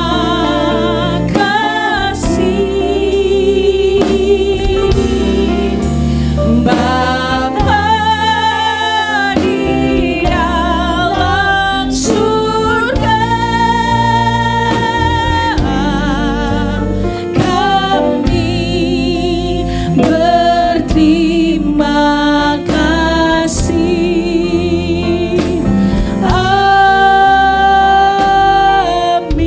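Live gospel worship music: a band of keyboard, electric bass, electric guitar and drums playing while women's voices sing long held notes.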